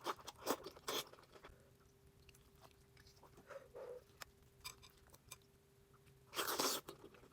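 Close-miked eating sounds: soft chewing with scattered mouth clicks, and a louder burst of noise about six and a half seconds in.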